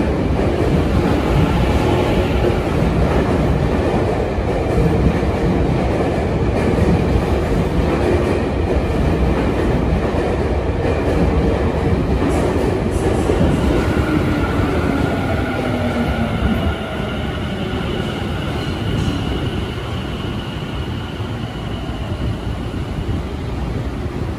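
Tobu 50050-series electric train pulling into an underground station and braking to a stop: wheels rumbling and clattering over the rails, with the motor whine falling in pitch as it slows. Steady high tones join in over the second half, and the rumble drops off about two-thirds of the way through as the train settles to a halt.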